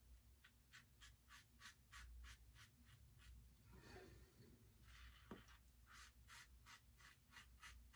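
Faint scratching strokes of a Karve Christopher Bradley safety razor shaving through lathered whiskers against the grain, short quick strokes about three a second, with a pause in the middle before they resume.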